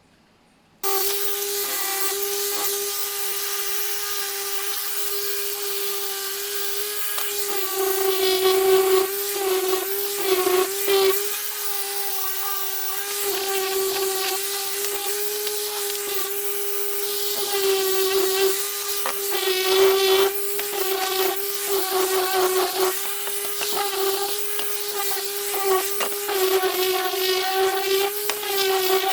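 Jigsaw starting about a second in and running steadily, cutting a plywood shelf, its motor whine holding one pitch while the loudness swells and dips as the blade works through the wood.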